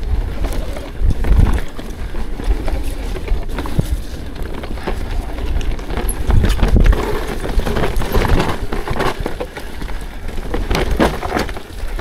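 ProPain Ekano 2 mountain bike riding down a rocky trail: a constant run of irregular knocks and rattles as the tyres hit rock and the bike's parts clatter, over a low wind rumble on the action camera's microphone.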